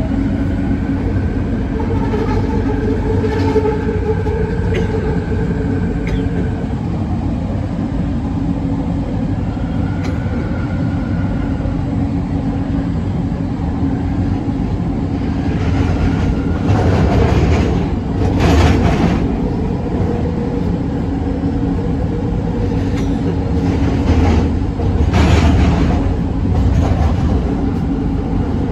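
Bombardier Innovia ART 200 light-metro train running on the Kelana Jaya Line: a steady electric whine from the drive over a continuous wheel-and-rail rumble. Twice in the second half the rail noise swells up louder for a second or two.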